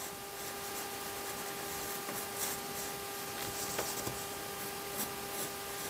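Faint scratching of a pencil drawing a curve on a paper pattern, with a few soft ticks, over a steady low hum.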